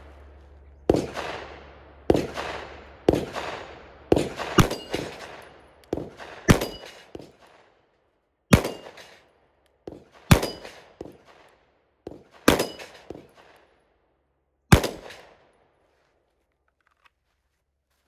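Walther PDP F-Series 9mm pistol fired in slow, spaced shots, more than a dozen, at steel plates; six of the shots are followed by the ringing clang of a plate being hit. The shooting stops about 15 seconds in.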